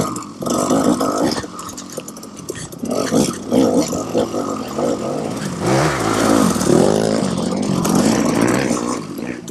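KTM 300 XC-W two-stroke dirt bike engine, its revs rising and falling over and over as the throttle is worked on and off.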